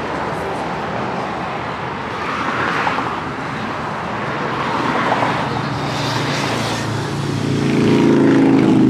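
Road traffic going by: steady noise with passing swells about three and five seconds in, then a louder vehicle engine hum building near the end.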